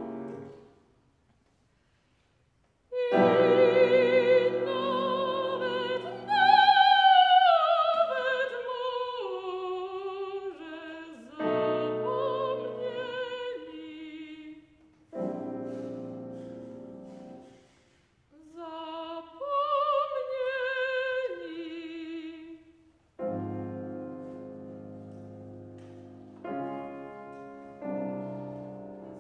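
Soprano singing a Polish art song with piano accompaniment, using a strong vibrato in phrases that fall in pitch, broken by short breaks. The music pauses for about two seconds near the start, and the last several seconds are piano chords alone.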